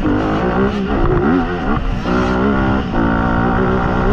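Honda CRF250 motocross bike's four-stroke single-cylinder engine revving up and down under load, with the throttle shut briefly twice, as in gear changes or braking for a corner.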